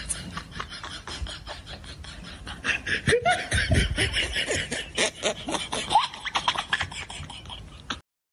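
Men laughing in rapid breathy bursts, getting louder and fuller from about three seconds in, then cutting off abruptly just before the end.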